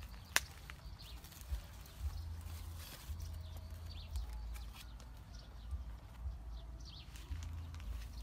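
Dry leaves and twigs rustling and crackling as hands work through a bush and gather eggs onto a large leaf, with scattered sharp clicks over a steady low rumble.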